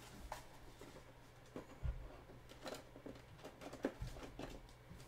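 Faint handling noises of trading cards and card packaging: scattered light clicks and rustles, with two soft low thumps on the table about two seconds and four seconds in.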